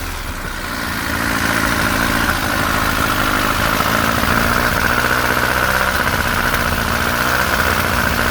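Car engine running steadily, building a little over the first second and then holding, with a steady whine over it.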